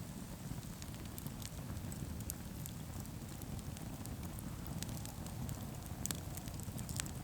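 Campfire of juniper wood crackling: scattered sharp pops and snaps over a steady low rumble.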